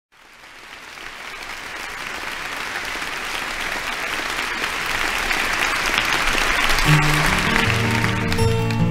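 Live audience applauding, fading in and swelling. About seven seconds in, an acoustic guitar starts picking the song's introduction under the applause.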